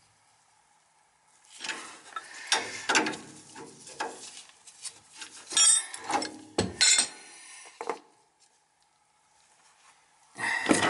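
A metal wrench clinking and knocking as it works the fitting on a heating-oil tank's outlet valve: a string of separate clicks and knocks, some ringing, starting about a second and a half in, a pause, then one louder knock just before the end.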